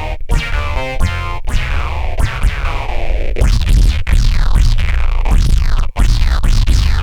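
Electronic music from a Blipblox synthesizer run through Eurorack modular filters and a phase shifter: heavy bass under sweeping, falling filter tones, with the sound cutting out briefly a few times.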